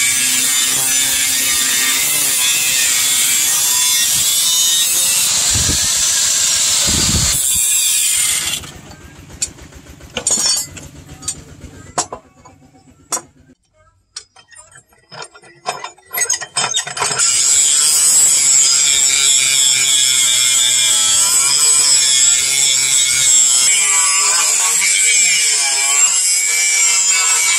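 Electric angle grinder with a thin disc cutting into chainsaw bar steel, a steady high whine with grinding noise, stopping about eight seconds in. Scattered metal knocks and clanks follow as the blade is clamped, then the grinder starts again, now grinding the steel with a flap disc.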